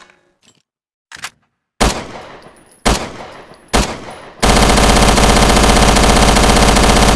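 Thompson submachine gun sound effect: a light click, then three single shots about a second apart, each with an echoing tail. From about four and a half seconds in, it breaks into sustained full-automatic fire.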